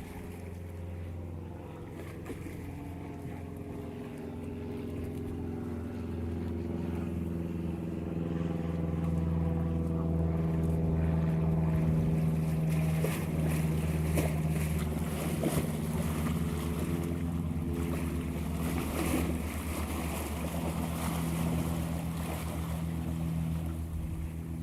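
An engine running steadily with a constant low hum, growing louder over the first ten seconds or so and then holding.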